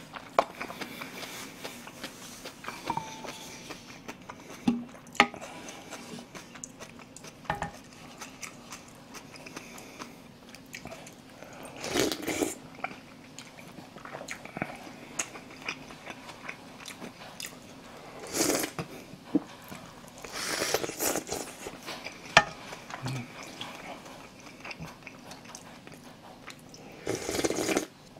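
Close-miked eating of pork and rice soup: chewing with small wet clicks, broken up by a few louder slurps of broth, the last one near the end.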